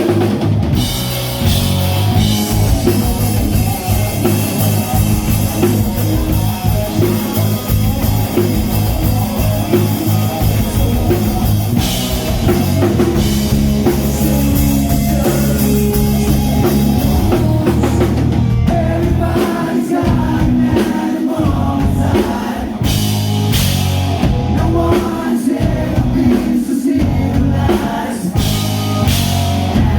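Glam metal band playing live at full volume: drum kit, electric guitars and bass, with a singer's voice over them. About two-thirds of the way in the low end thins out and the drum beats stand apart.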